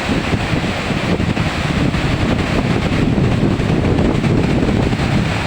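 Floodwater rushing past in a steady wash of noise, with wind buffeting the microphone.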